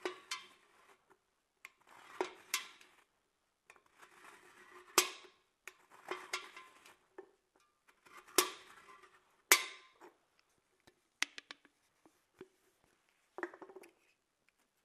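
An aluminium drink can being turned against a utility knife blade as it scores a line around the can: irregular scraping and sharp clicks, each of the louder clicks followed by a short metallic ring from the thin can.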